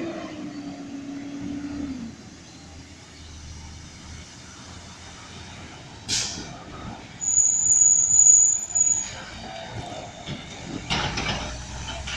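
Garbage truck (a Heil DuraPack Rapid Rail automated side loader) pulling up and stopping at an intersection: a sharp air hiss about six seconds in, then a loud, high-pitched brake squeal lasting about a second and a half. Another burst of air hiss near the end as it moves off and turns.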